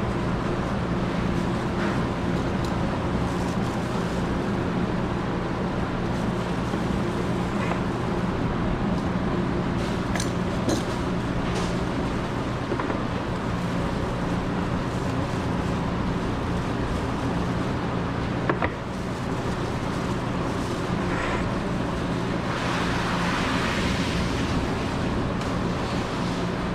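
A steady low machine hum over a constant background rush, with a few faint clicks, a short sharp knock about two-thirds of the way through, and a brief hissing rush near the end.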